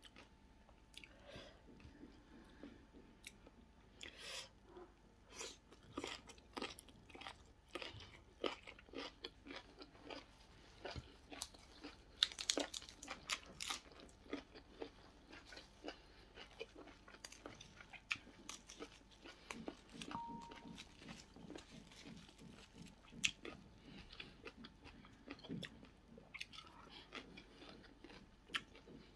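A person chewing and crunching food: grilled prawns and green papaya salad eaten by hand, heard as soft, irregular wet clicks and crackles of the mouthfuls.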